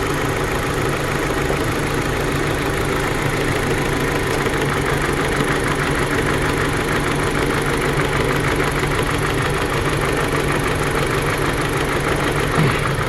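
Dodge Journey's 2.4-litre four-cylinder engine idling roughly with a misfire, a steady run of uneven firing pulses; the misfire is traced to cylinder 1. A single sharp click near the end.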